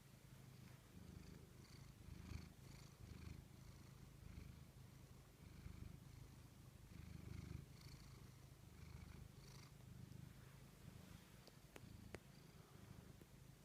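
Tabby cat purring faintly and continuously, the low purr swelling and easing every second or two, with a couple of faint clicks near the end.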